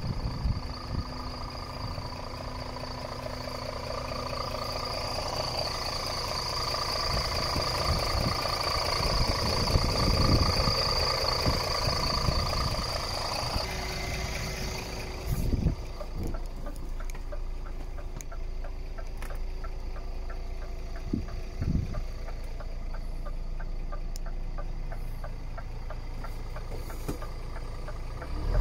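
Scania R450's 13-litre inline-six diesel idling steadily, heard first outside the truck and then, from about halfway, quieter and duller from inside the cab, with a few dull thumps.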